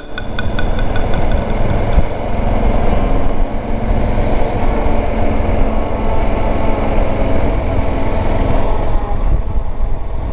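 Voge 650DS parallel-twin motorcycle running at road speed, its engine mixed with a steady rush of wind and road noise on the handlebar-mounted camera's microphone.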